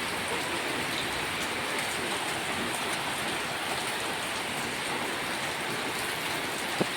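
Steady rain falling, an even, unbroken hiss, with a single sharp click just before the end.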